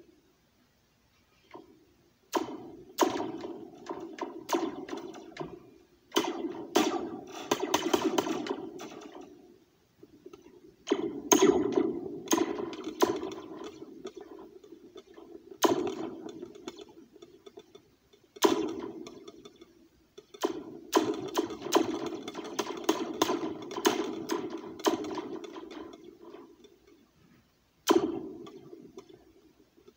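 A metal spoon tapping a metal slinky taped to a plastic cup, which sounds out laser-gun-like zaps. The strikes come singly and in quick runs, each ringing out for about a second, with short pauses between.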